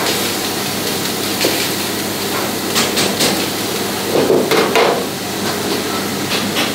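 Minced meat sizzling in a hot wok over a gas burner, with a steel wok ladle clanking and scraping against the wok several times.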